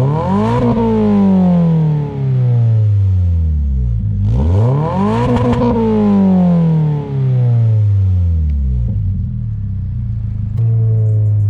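Toyota GR86's 2.4-litre flat-four revved twice through an aftermarket exhaust. Each time the revs climb quickly and then fall back slowly over a few seconds, and near the end the sound switches abruptly to a steady drone.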